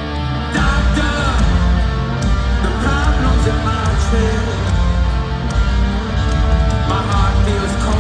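Rock band playing live in an arena: electric guitars, bass and keyboards with a lead singer's voice. The band gets fuller and heavier about half a second in.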